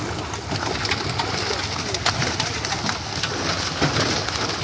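Many fish splashing and flapping in shallow water crowded inside a drawn-in net, a dense, irregular patter of small splashes.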